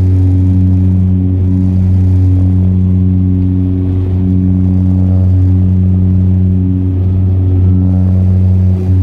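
Twin-turboprop Saab 340's General Electric CT7 engines and propellers running with a steady low drone that pulses slowly as the two propellers beat against each other.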